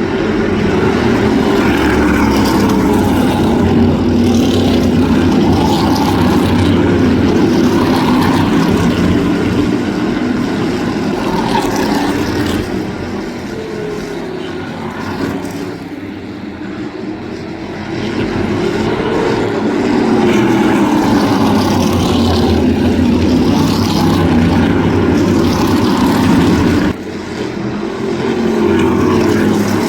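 Crate-engine V8 modified race cars running at racing speed, several engines going at once with their pitch rising and falling as the cars pass and come off and back onto the throttle. The sound eases off for a few seconds about halfway through, and drops suddenly near the end before picking up again.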